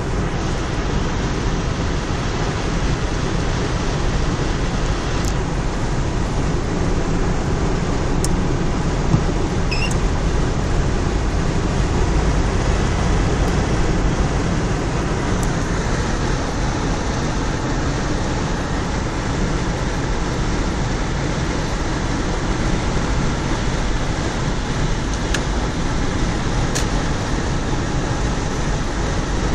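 Steady in-cabin road noise of a car cruising at expressway speed: tyres on wet asphalt with low engine and wind rumble.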